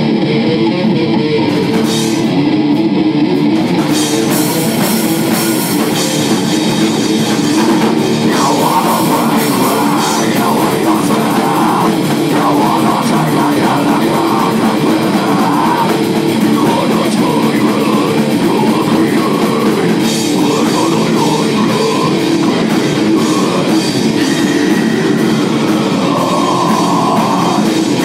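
Loud rock band playing: electric guitar and drum kit in a heavy, rock-to-metal style.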